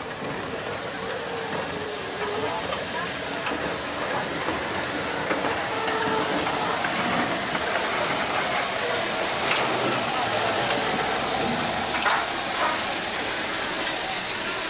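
Standing Beyer Peacock steam locomotive hissing steam steadily, the hiss growing louder about halfway through. People talk faintly in the background.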